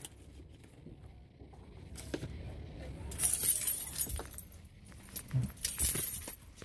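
Keys jingling in short bursts, mostly from about three seconds in and again near the end, with a few sharp handling knocks; no engine is running.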